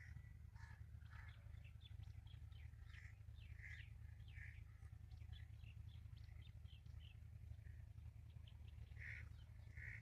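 Faint birds calling in the open: many short, scattered calls throughout, with a few louder, harsher caws a third of the way in and again near the end, over a steady low hum.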